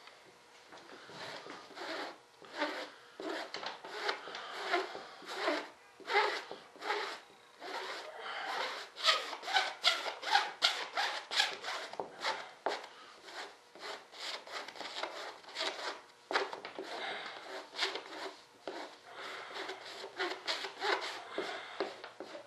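Rhythmic rubbing strokes of a brush working epoxy resin into carbon-fibre cloth on a model wing, about one to two strokes a second, louder and quicker near the middle.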